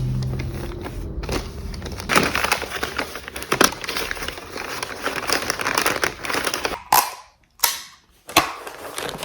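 Crackling and rustling of packaging being handled and opened, with many small sharp crackles. It breaks off briefly near the end.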